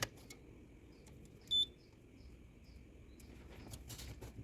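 A multimeter's continuity tester gives one short, high-pitched beep about a second and a half in, as the probes are put across the defrost thermal fuse; the beep signals an unbroken circuit. Light clicks and handling of probes and wires come before and after.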